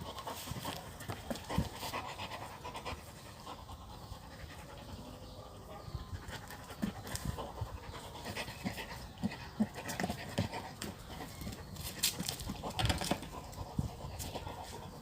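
A dog panting hard from the exertion of chasing a ball, with scattered short knocks and scuffs.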